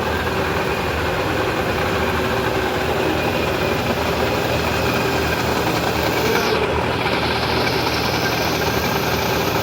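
Metalworking machine running steadily in the workshop where a keyway is being cut into a stainless steel shaft, with a constant low hum under a dense mechanical noise.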